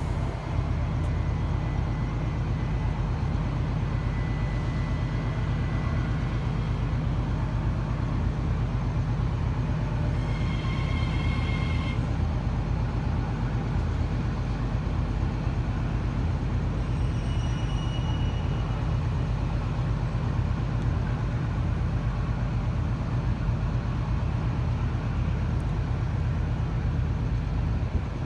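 New Intercity Fleet double-deck electric train at a platform, its equipment giving a steady low hum. A brief high electronic tone sounds about ten seconds in, and fainter ones near seventeen seconds.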